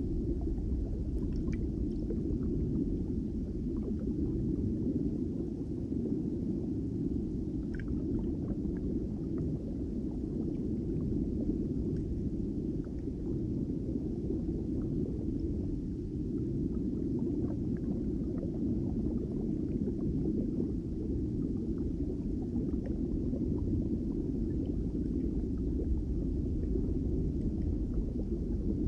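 Underwater sound picked up by a GoPro in its waterproof housing: a steady, muffled low rumble of pond water with faint scattered clicks.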